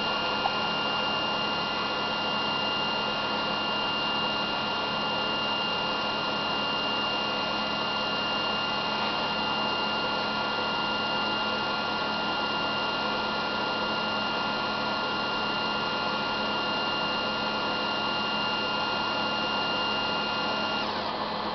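Honeybee 963 crystallisation robot running: a steady whirring hiss with a couple of high whining tones, which stop shortly before the end.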